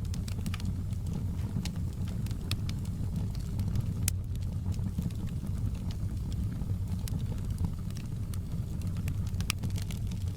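Wood fire in a fireplace crackling, with irregular sharp pops and snaps, one louder about four seconds in, over a steady low rumble.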